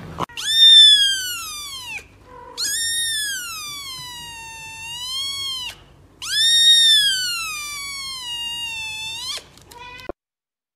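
Young kitten meowing: three long, high-pitched meows, each rising and then falling in pitch.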